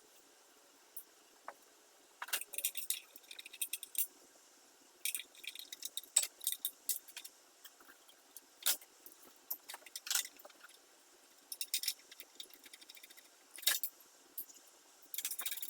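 Scattered metallic clicks and clinks of hand tools and small metal parts being handled as a snow blower is reassembled, with a denser rattling run near the end.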